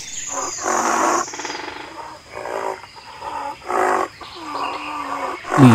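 Rhinoceros calls: a series of about five or six short, low grunting calls, each lasting under a second, with short gaps between them.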